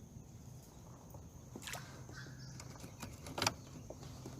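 Quiet outdoor background with a faint steady hum and a high faint tone, broken by a few short knocks, the loudest about three and a half seconds in.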